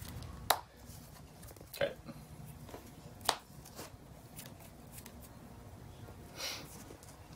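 Sleeved trading cards handled and set down on a playmat: a few short, sharp taps spread out over several seconds and a soft swish near the end, over a faint low hum.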